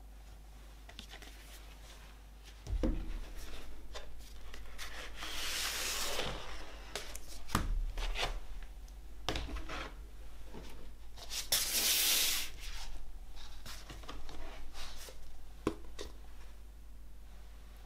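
Cardboard LP sleeve and printed paper insert being handled on a wooden tabletop: paper and card rubbing and sliding against each other, with a couple of soft knocks as the sleeve touches the table and two longer rustling slides.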